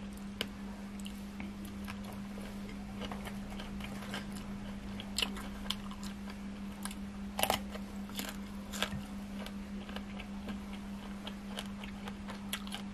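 Close-up sounds of a person eating: chewing and biting crunchy food, spicy pounded long-bean salad and raw Thai eggplant, with scattered small crunches and clicks, the loudest about seven and a half seconds in. A steady low hum runs underneath.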